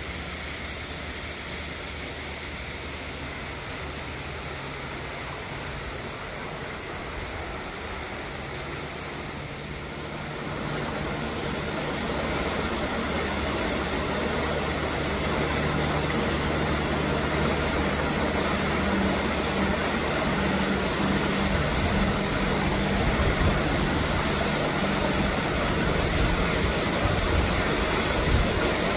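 A steady engine drone with a low hum, getting louder about ten seconds in and staying at that level.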